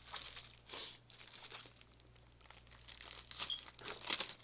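Plastic packaging crinkling and rustling as it is handled and lifted out of a cardboard box, in scattered short bursts with a brief lull in the middle.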